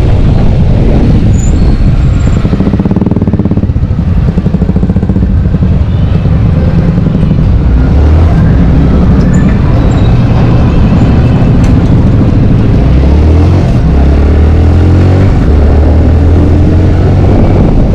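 Yamaha sport motorcycle's engine running while riding through traffic, its pitch climbing as the bike picks up speed in the second half.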